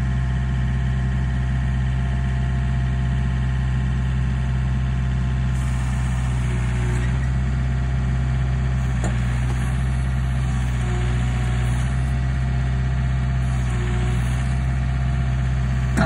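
Diesel engine of a John Deere backhoe loader running steadily while its backhoe arm lifts a log on a cable.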